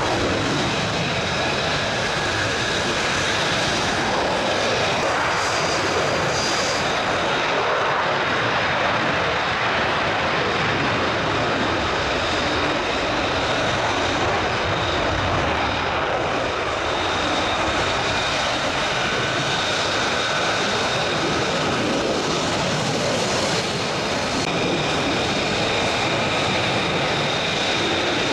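Military fighter jet engine running steadily, a loud even rush of noise with a thin high whine over it.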